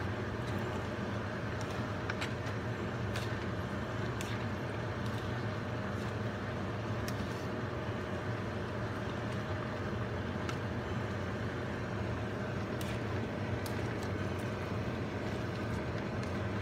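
Steady mechanical hum, with a few faint clicks scattered through it.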